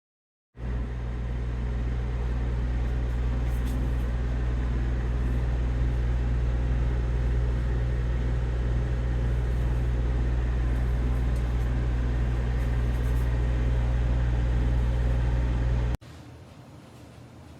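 Steady low mechanical hum that cuts in suddenly after a brief dead gap and cuts off abruptly near the end.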